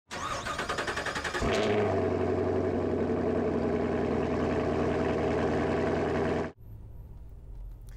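An engine starting up with a rapid rattle, then running at a steady idle from about a second and a half in. It cuts off abruptly near the end, leaving a quieter low hum.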